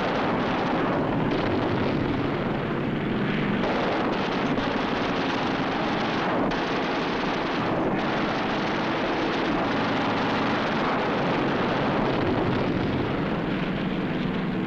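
Loud, continuous roar of WWII fighter aircraft engines mixed with machine-gun fire, a dense unbroken din of air combat.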